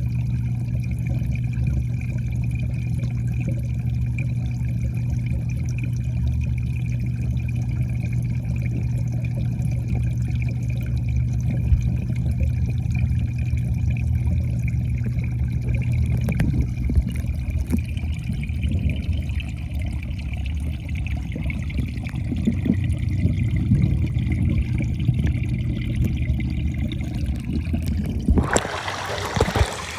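Muffled underwater sound in a koi pond: a steady low hum with a faint high steady tone over soft water movement. About a second and a half before the end it changes abruptly to brighter splashing water as the phone comes up through the surface.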